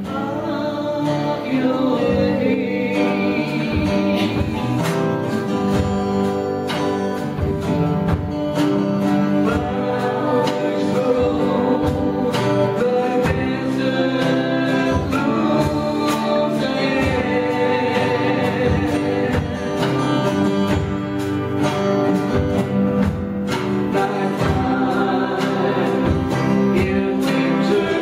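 Live gospel worship music: women singing a slow worship song together, over strummed acoustic guitars keeping an even rhythm.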